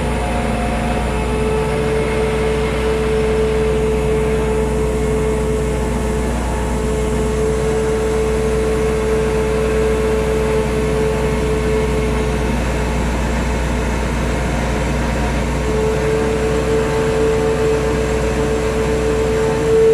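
KATO NK-3600 truck crane's diesel engine running steadily under load while hoisting a heavy tunnel boring machine part, with a steady high whine that weakens for a few seconds after the middle.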